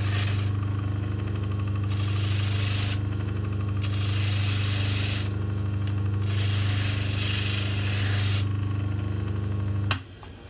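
Baldor bench motor running with a steady hum while a pistol frame is pressed against sandpaper on its spindle, giving four rasping passes with short gaps between as deep rust is sanded off a curved surface. The motor hum cuts off near the end.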